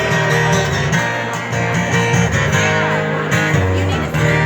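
Live band playing a slow country-rock song on guitars and bass in an instrumental passage between sung lines. A lead guitar bends notes over held chords.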